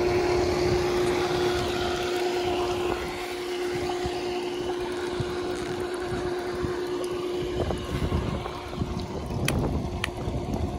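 Above-ground pool cartridge filter pump's electric motor humming steadily while it is still priming and not yet moving much water. Wind rumbles on the microphone.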